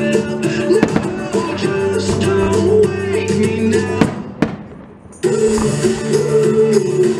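Music playing with fireworks bursting over it. About four seconds in the music stops and the sound fades away, with one sharp bang in the gap; the music comes back in about a second later.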